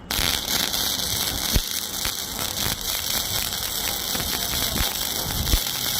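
Welding arc struck about at the start and running as a steady crackle and sizzle with scattered sharp pops: a downhill buttering pass laid on light-gauge steel to close the gap of a flare bevel groove.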